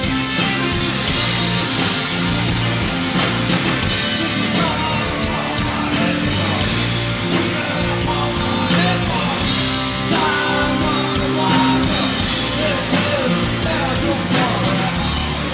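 Live rock band playing loudly: electric guitars, keyboards and drums, with a man singing.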